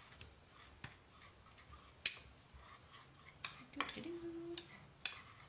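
Sharp clicks and taps of a metal cookie cutter and baking sheet as sugar-cookie dough is cut and handled, with two louder clinks, about two seconds in and near the end.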